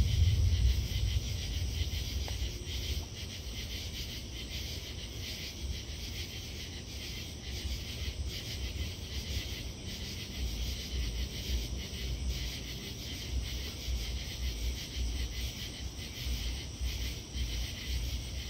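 Steady night chorus of crickets and katydids, a continuous high-pitched buzzing trill, with an uneven low rumble from the phone being handled.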